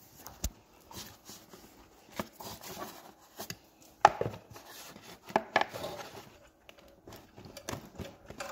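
Irregular clicks and knocks of hard plastic and metal parts being handled and wiggled on a motorcycle's airbox and frame, with the loudest knock about four seconds in.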